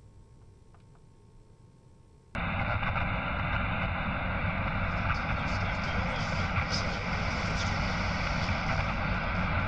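Television static: a loud, steady white-noise hiss from a TV with no signal, cutting in suddenly a little over two seconds in, after a couple of faint ticks in near quiet.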